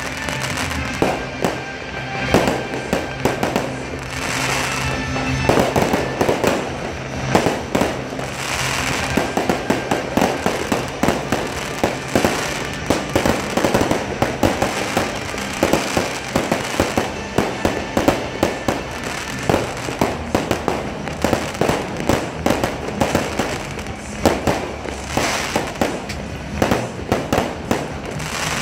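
Fireworks display going off continuously, a dense, irregular run of sharp bangs and crackle, several a second.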